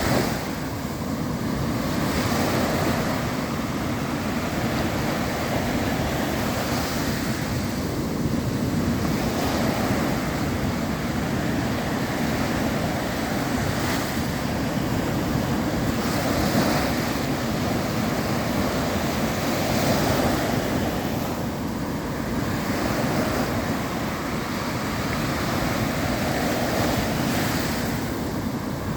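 Sea waves breaking and washing in: a continuous rushing surf that swells and eases every few seconds.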